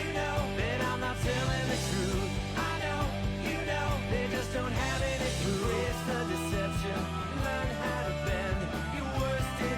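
Rock music: a singing voice over drums and a steady bass line.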